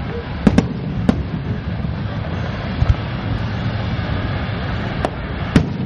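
Fireworks display: a handful of sharp pops from bursting shells over a continuous low rumble.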